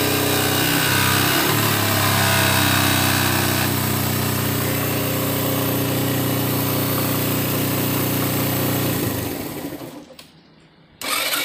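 Motorcycle engine idling with a noisy exhaust, then shut off about nine seconds in. A short loud noise follows near the end. The owner traces the exhaust noise to a worn rubber exhaust-mount spacer that lets the exhaust cover knock against the pipe.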